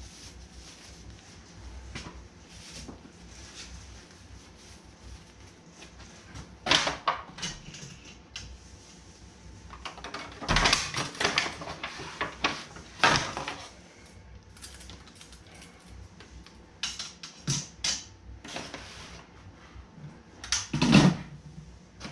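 Intermittent clattering and knocking of metal and foil as a cooked chuck roast is lifted on its wire trivet out of an Instant Pot's stainless steel insert and set in a foil pan. Music plays faintly underneath.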